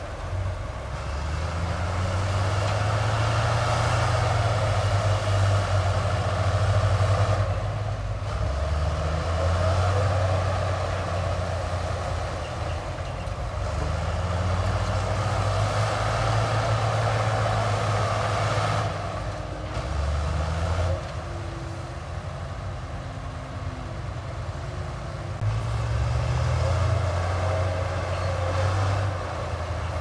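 Heavy diesel engine of earthmoving equipment running, its pitch and loudness rising and easing off again every few seconds.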